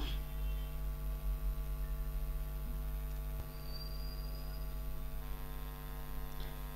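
Steady electrical mains hum: a low buzz with a stack of even overtones that does not change.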